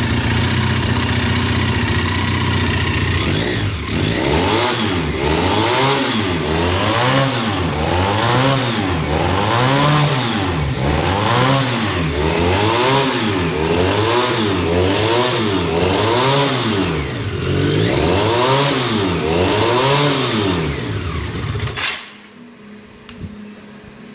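Honda CBR 450 motorcycle engine, freshly treated with Molycote spray, idling steadily, then blipped up and down about once a second in a long series of revs, and switched off about 22 seconds in.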